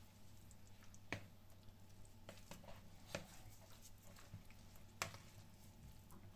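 A metal fork stirring a thick, saucy filling of grated cheese, ham and mayonnaise in a plastic bowl, faintly: soft squishing with a few sharp clicks of the fork against the bowl, the loudest about five seconds in, over a low steady hum.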